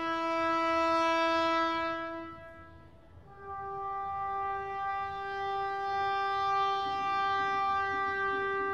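Long held musical notes, each a single steady pitch rich in overtones. The first fades away about two and a half seconds in, and a slightly higher note swells in about half a second later and holds.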